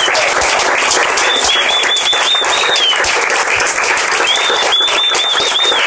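Audience applauding steadily, with a shrill whistle from the crowd that warbles up and down in two stretches, the second starting about four seconds in.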